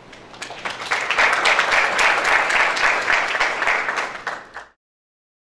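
Audience applause at the end of a talk: scattered claps quickly build into full, steady clapping, which then cuts off abruptly.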